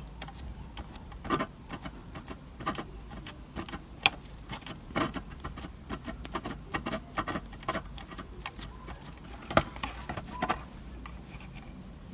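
Small sponge dabbing paint through a mylar stencil onto a model building's embossed-brick wall: soft, irregular taps and pats, a few louder than the rest.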